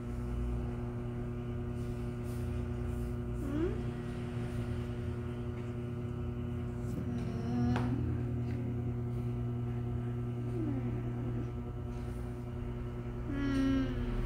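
Steady electrical hum made of several held tones. Over it, a young child makes a few short hummed vocal sounds while working out a sum, each gliding up or down in pitch.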